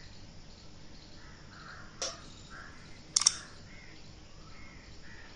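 Faint outdoor background noise, broken by two short, harsh sounds about two seconds and three seconds in, the second louder.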